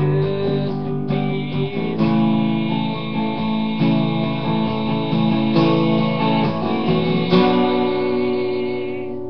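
Acoustic guitar strumming chords in the song's instrumental outro, a new chord about every two seconds, the last one struck near the end and left to ring and fade.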